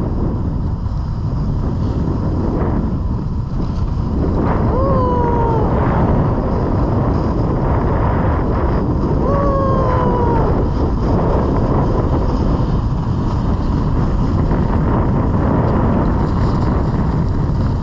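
Wind rushing over a GoPro's microphone during a fast run down a groomed ski slope, with the hiss of sliding over snow underneath. Two short falling tones, about four seconds apart, stand out in the middle.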